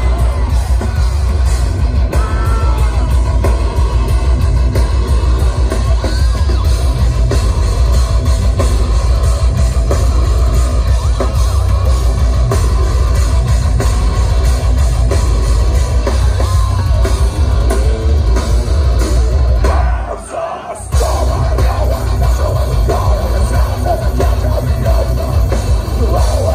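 Live heavy metal band playing loud, with distorted guitars and pounding drums, heard from within the crowd in front of the stage. Near the end the band stops for under a second, then crashes back in.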